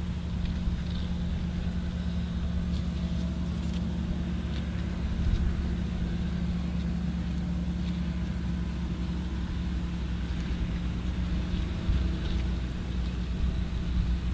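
Diesel engines of farm tractors and a combine harvester running as they approach along a road, a steady low drone that grows a little louder near the end.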